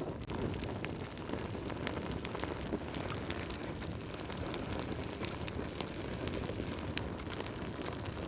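Wood fire crackling in a fireplace: a steady low rumble with many sharp, irregular pops and snaps.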